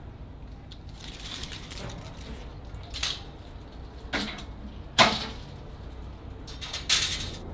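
Laundry being handled at a drying rack: cloth rustling, then a few short sharp snaps and clacks, the loudest about five seconds in, over a steady low hum.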